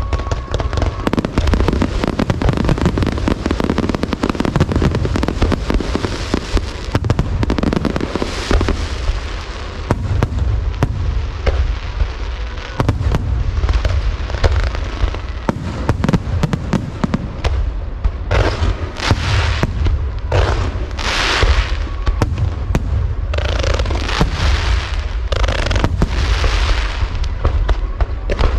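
Aerial fireworks display: a dense, continuous barrage of shell bursts going off rapidly one after another, with several longer hissing bursts from about two-thirds of the way in.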